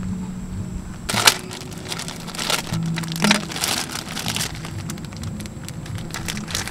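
Plastic food packaging crinkling in bursts as a bag is handled and opened and a small packet pulled out, over soft background music.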